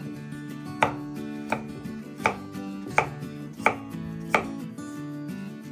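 Knife chopping pumpkin into cubes on a wooden chopping board: six sharp, even strokes, one about every 0.7 seconds, over soft background guitar music.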